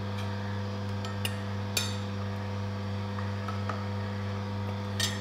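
Oscar DA1000 cold-press slow juicer's motor running with a steady low hum as its auger presses Siamese cassia leaves. A few light clinks come about a second in, just before two seconds, and near the end.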